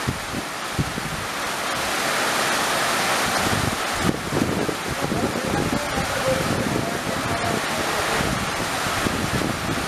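Heavy rain pouring down in a steady hiss, with wind buffeting the microphone in gusts. The running noise of a passenger train receding through the downpour is blended into it.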